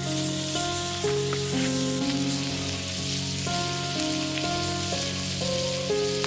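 A thick block of raw meat sizzling steadily on a hot steel griddle over a wood fire, the sizzle starting as it goes on. Background music plays underneath.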